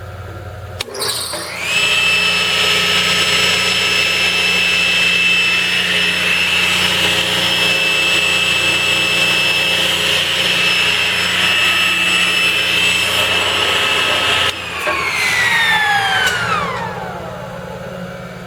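Jet 10-inch Pro Shop table saw's 1¾ hp, 115 V motor switched on with a click about a second in and spinning up with a rising whine. It runs at a steady high whine for about thirteen seconds, then is switched off and coasts down with a falling whine.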